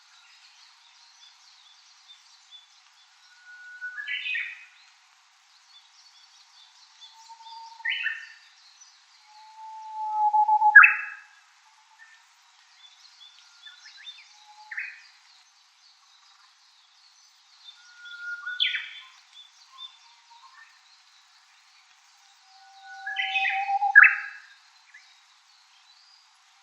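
Japanese bush warbler singing its hoo-hokekyo song: a low held whistle followed by a quick high warbled flourish. The phrase is repeated about seven times, every three to four seconds, with faint high chirping in the background.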